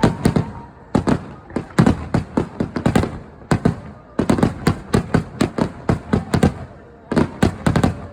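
Fireworks display: volleys of aerial shell bursts, sharp bangs several a second in quick runs, with short pauses between volleys.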